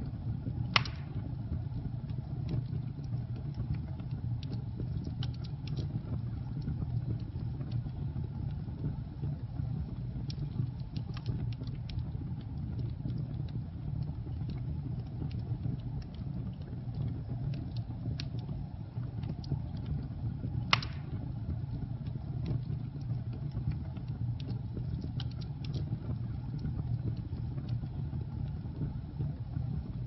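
Log fire burning: a steady low rumble of flames with scattered small crackles, and two sharp, loud pops from the wood, one about a second in and one about two-thirds of the way through.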